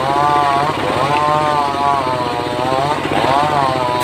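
An engine-driven saw cutting mahogany, the engine running hard under load. Its pitch dips and recovers about once a second as the cut loads and frees it.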